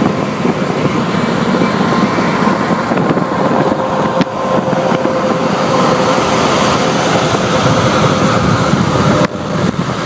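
Steady road and wind noise of a vehicle driving at highway speed, with a faint steady tone running through it; the level dips suddenly near the end.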